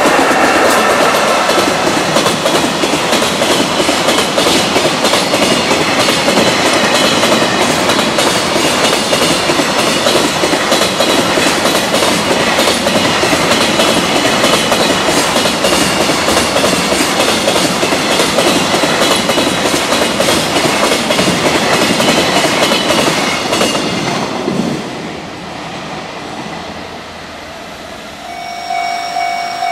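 Container freight train passing at speed, its wheels clattering in a rapid rhythm over the rail joints. The noise drops away about 24 seconds in as the last wagon passes. Near the end a level-crossing warning alarm starts sounding with steady tones.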